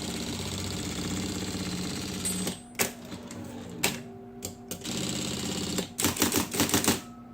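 Brother electric typewriter running on its motor, rewound for 220 V, with a steady hum. A couple of single sharp clicks come around the middle, then a quick rattling run of typebar strikes about six seconds in, the loudest part.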